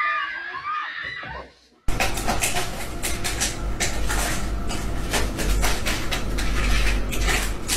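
A high, wavering cry for about the first second and a half. After a sudden cut comes a dense run of scratching and rustling clicks over a low hum: a cat clawing and digging at the bedding.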